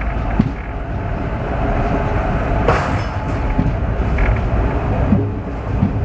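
Passenger train coach running along the track: a steady low rumble of wheels on rail, with a few sharp knocks, the clearest a little under three seconds in.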